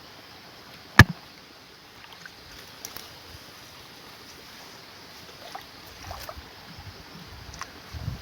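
Steady low hiss of water outdoors, with one sharp click about a second in and a few faint taps later.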